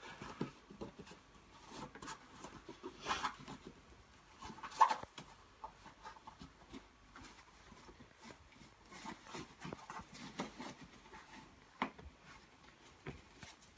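Faint rustling of a stroller carrycot's fabric cover and light clicks and knocks from its plastic parts as the cover is fed into its zippers by hand, with a few sharper ticks, the loudest about five seconds in.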